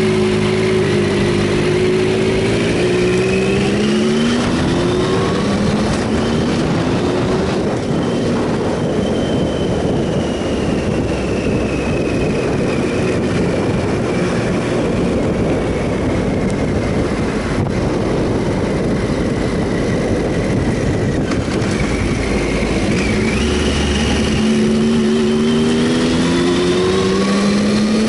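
Triumph Sprint ST 1050's three-cylinder engine pulling as the motorcycle accelerates, its pitch rising for the first few seconds. Then a steady rush of wind and road noise covers the engine while cruising, until the engine note climbs again as it accelerates near the end.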